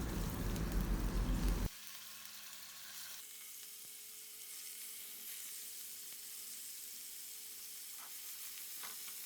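Small chicken pieces frying in hot oil in a pan, a steady sizzle. It is louder for the first second and a half, then drops abruptly to a quieter sizzle.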